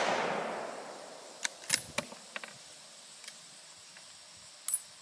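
The fading rolling echo of a Remington 770 .30-06 rifle shot, dying away over about the first second. It is followed by a quick series of sharp metallic clicks and clacks as the rifle's bolt is worked, with a couple more clicks near the end.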